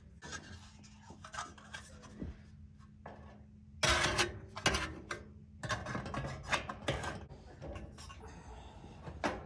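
Electric stove heater's cover being handled and fitted back on: scattered clicks and knocks, with a louder stretch of scraping and clatter about four seconds in.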